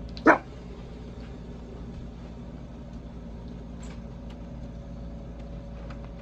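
A dog barks once, briefly, just after the start; after that there is only a steady low hum and a few faint light clicks.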